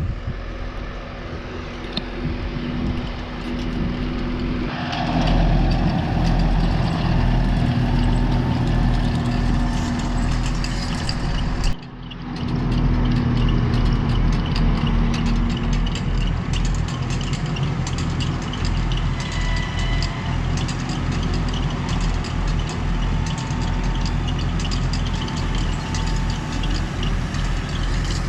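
Tractor engine running steadily, growing louder about five seconds in, with a brief dropout near twelve seconds.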